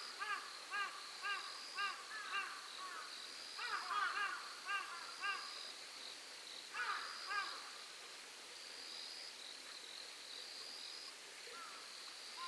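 Night insect trilling high and steady in repeated phrases of about a second each, under runs of short, harsh bird calls, about three a second, in bursts during the first seven seconds. After that only the insect trill goes on.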